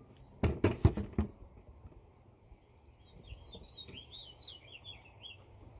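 A quick cluster of sharp clicks and knocks about half a second in, then a bird chirping a short run of quick rising-and-falling notes about three seconds in.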